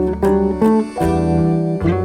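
Background music led by plucked acoustic guitar over a steady bass line, the notes changing about every half second.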